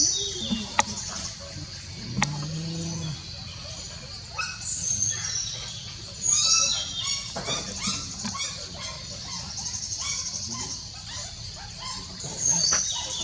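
Puppies whimpering and yipping in high-pitched squeals, coming in several runs, with a couple of sharp clicks about a second and two seconds in.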